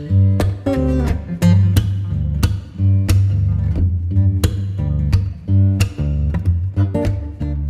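Background music of plucked guitar with a steady bass line.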